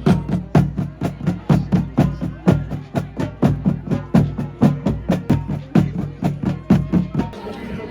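Marching band drumline playing a fast, even cadence: sharp stick strikes about four to five a second over low drum thuds, cutting off suddenly shortly before the end.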